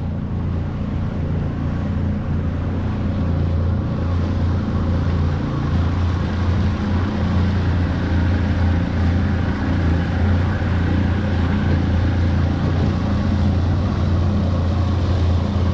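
Boat motor running steadily at low trolling speed, a constant low hum with no change in pitch.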